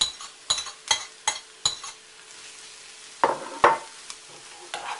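Metal spoon tapping and scraping a ceramic plate, about five quick taps, as grated carrot and chopped onion are pushed off it into a frying pan of hot sunflower oil, with a light sizzle underneath. About three seconds in the spoon knocks twice against the pan while stirring the vegetables.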